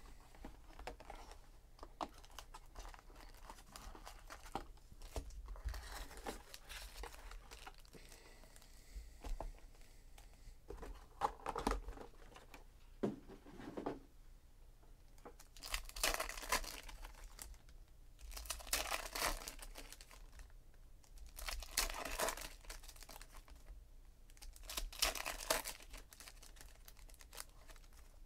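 Foil trading-card packs of 2017 Donruss Optic baseball being handled and torn open by hand: crinkling wrappers, then four loud rips about three seconds apart in the second half as pack after pack is opened.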